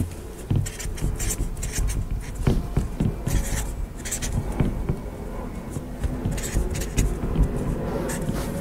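Felt-tip marker writing digits one after another on a board, a run of short irregular squeaky scratches from the pen strokes, over a low steady rumble.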